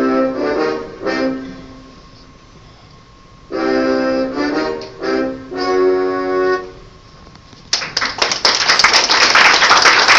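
A keyboard instrument with a reedy, accordion-like voice plays two short phrases of held chords as a musical sting closing the scene. About three-quarters of the way in, audience applause breaks out and is louder than the music.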